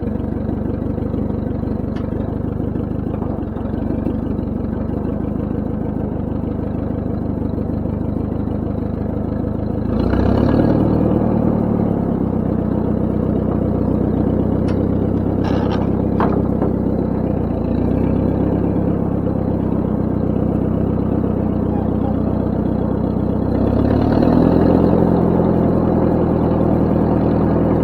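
Ford 9N tractor's four-cylinder flathead engine running steadily, its speed picking up about ten seconds in and again a few seconds before the end, with a couple of light clicks in between.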